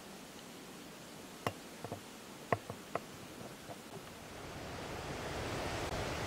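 Faint outdoor hiss with a few short sharp clicks in the first half, then a steady rush of wind noise rising from about four seconds in.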